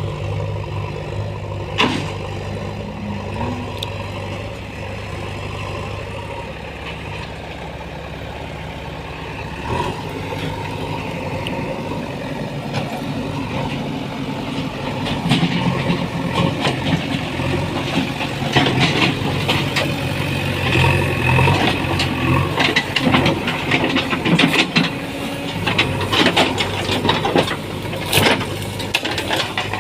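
JCB backhoe loader's diesel engine running steadily. Its note shifts about a third of the way in, and from about halfway on it grows louder, with a rapid, irregular run of cracks and knocks from the machine's work.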